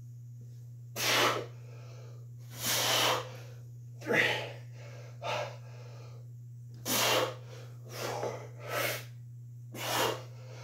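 A man's sharp, forceful breaths of exertion, about eight short puffs in ten seconds, at the effort of each goblet single-leg box squat. A steady low hum sits under them.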